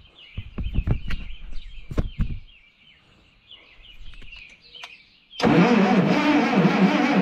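A few clicks and knocks with birds chirping, then about five seconds in the Allis-Chalmers D19 gas tractor's starter suddenly begins cranking its engine, loud and steady, on a trial start after new starter, coil and plug-wire work.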